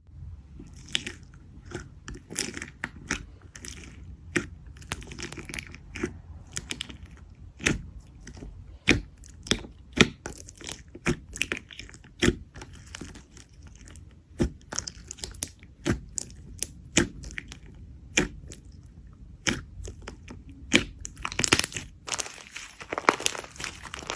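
Slime being squeezed and poked by hand, giving sharp, irregular crunchy pops and clicks a few times a second, turning to denser crackling near the end.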